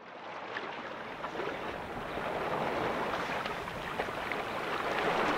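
Rushing water, fading in from silence and growing steadily louder.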